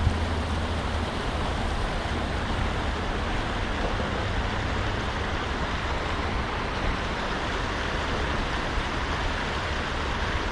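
Water rushing steadily over a small man-made spillway, a constant even rush.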